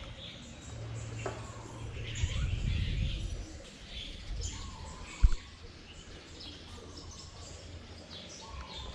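Small birds chirping in the surrounding trees, many short high calls throughout. A low rumble swells around two to three seconds in, and a single sharp thump comes a little past five seconds.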